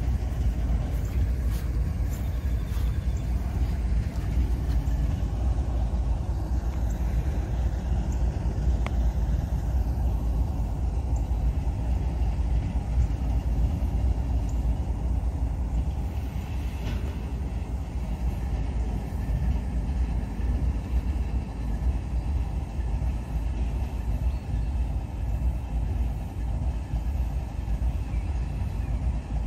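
Steady low outdoor rumble with no clear events in it.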